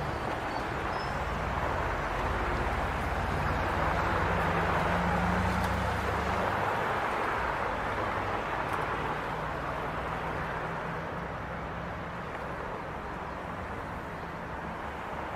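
City traffic heard from a distance as a steady, even roar, with a lower engine rumble under it that drops away about six seconds in.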